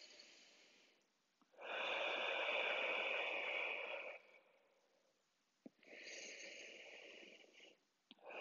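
A woman's slow, audible breaths close to the microphone while she holds a stretch: a long breath of about two and a half seconds, then a fainter, shorter one, with another beginning at the end.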